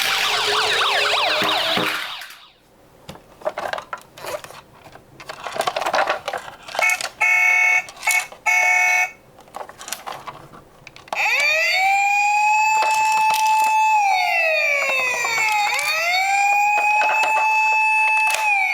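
Overlapping siren wails that stop about two seconds in, then light clicks and knocks of small die-cast toy cars being handled, with a short stretch of pulsed electronic tones. From about eleven seconds a single emergency-vehicle siren wails loudly, holding a steady tone, then sliding down and back up.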